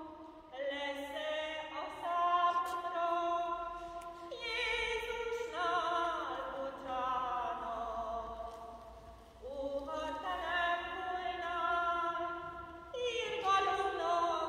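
A voice singing a Marian hymn in long held notes with vibrato, echoing in a large church, with short breaks between phrases about four, nine and thirteen seconds in.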